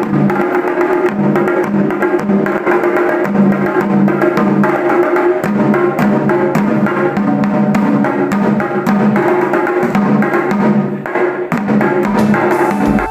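Music with busy, fast percussion over a repeating melody.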